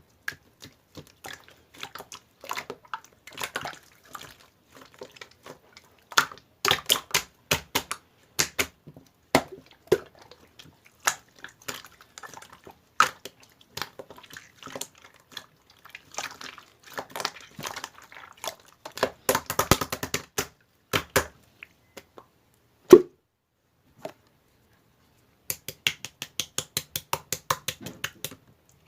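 Slime being squished and pressed by hand, giving irregular wet clicks and crackles, with one louder pop a little past the middle and an even run of about five clicks a second near the end.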